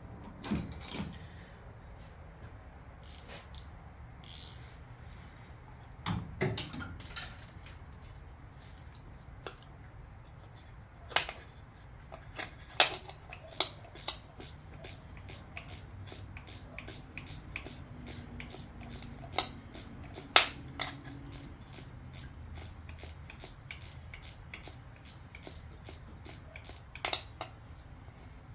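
Socket wrench ratchet clicking in short strokes, with a few scattered knocks of tools on metal. Through the second half the clicks come at an even two to three a second. It is loosening the intake manifold bolts on a Chevy 350 small-block.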